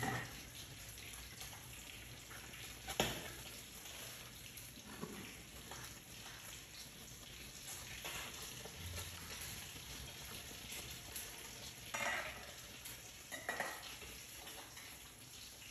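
Food frying in a pan, a steady sizzle, with a few sharp clinks and knocks as a metal pot lid is lifted and set back down, the loudest about three seconds in.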